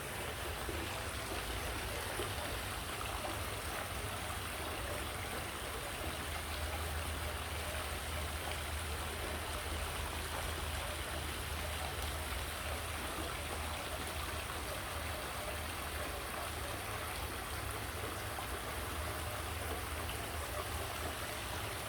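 Steady, even rush of falling and splashing water.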